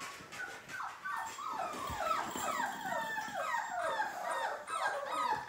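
Labrador puppies whimpering and yipping: a rapid run of short, high, bending cries, about three a second, starting about a second in.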